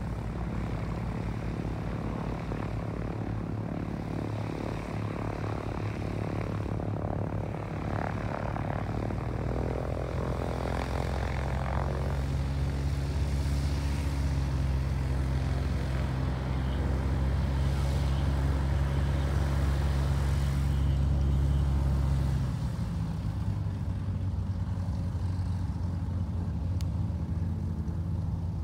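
Light propeller airplane engines running with a steady low drone. The drone grows louder about ten seconds in and drops back abruptly after about twenty-two seconds.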